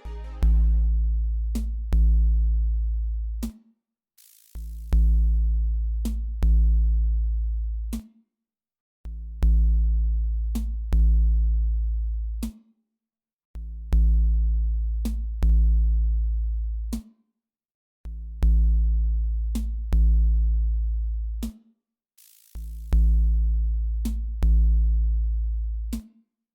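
Background electronic music: a drum-machine beat with deep bass notes repeating about every second and a half, a cymbal-like hiss at the start of each phrase, and short silent gaps between phrases.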